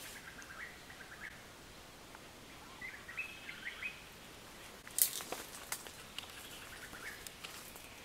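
Small birds chirping in short, high twittering phrases, with a cluster of sharp clicks and crackles about five seconds in, the first the loudest.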